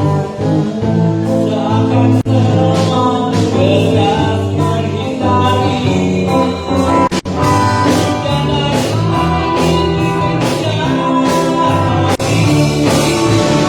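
A band playing live, with a singer over guitar, bass and drums, at a steady beat.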